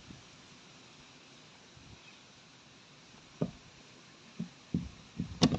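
Faint steady hiss, then a few irregular dull knocks and thumps from about halfway through, the loudest near the end.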